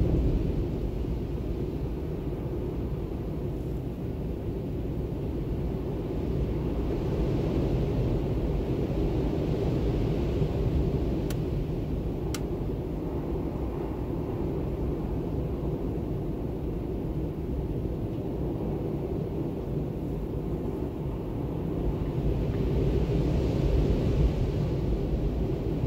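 Howling storm wind, a steady low rumble that swells in gusts twice, once in the middle and again near the end. Two faint ticks come near the middle.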